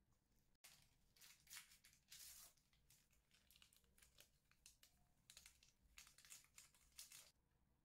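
Faint crinkling, rustling and tearing of a baking powder sachet being opened and emptied into a sieve, in irregular clusters of crackles.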